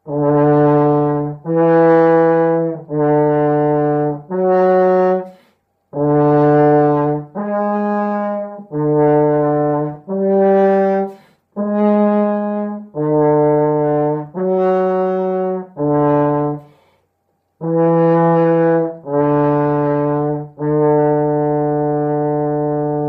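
French horn playing a slow exercise melody of separate held notes, about one a second, in four short phrases of four notes with brief breaths between. The last note is held for about three seconds at the end.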